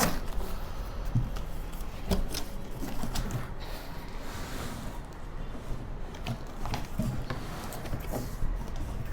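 A cardboard shipping box being opened and its contents handled: scattered knocks, scrapes and rustling of cardboard and packing.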